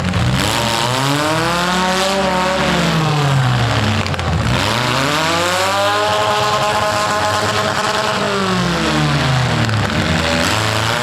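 Four-cylinder economy compact cars' engines revving hard in a demolition derby, pitch climbing and dropping in long sweeps every few seconds as the cars accelerate and back off, over a steady low engine drone.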